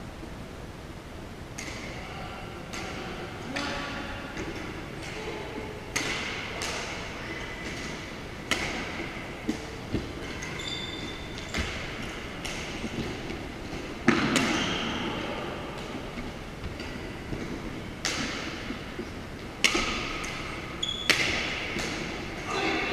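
Badminton rally: rackets striking a shuttlecock, sharp cracks one to two seconds apart, each with a short echo in a gymnasium.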